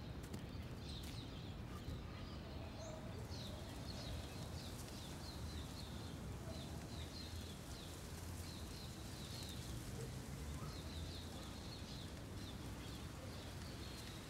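Ambience of small birds chirping in short, repeated calls over a low, steady background hum.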